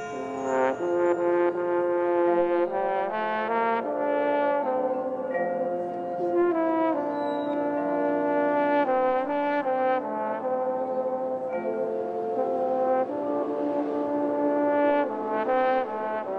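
Marching band brass playing a melody in chords, the notes changing about every half second to a second.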